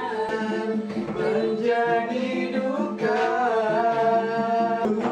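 Music with a singing voice holding long, melodic notes.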